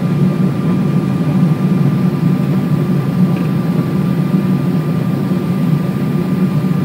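Steady cabin noise inside a Boeing 777-200 on approach with its flaps extended: engines and airflow as a low, even rumble with a thin constant tone above it.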